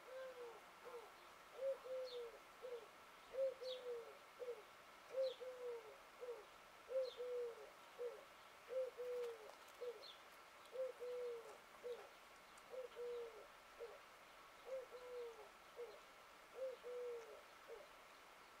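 A dove cooing: a three-note coo, the middle note longest, repeated steadily about every two seconds. A few faint, short, high chirps from a small bird come in among the first phrases.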